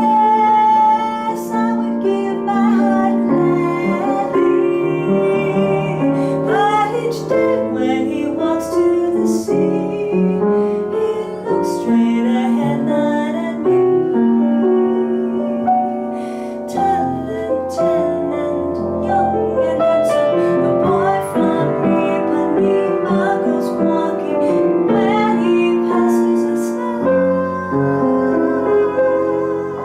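Bossa nova song on piano, with a woman singing.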